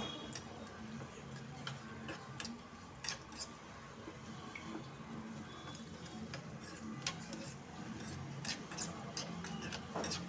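A metal spoon clicking and scraping in a small steel pan as cashew pieces are stirred while they fry in ghee. The sharp clicks come irregularly over a low, steady hum.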